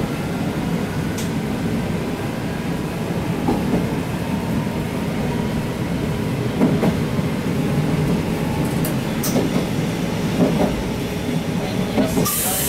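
Diesel railcar running along the track, heard from inside the cab: a steady engine and wheel rumble with occasional clicks as the wheels cross rail joints and points. A short hiss comes near the end.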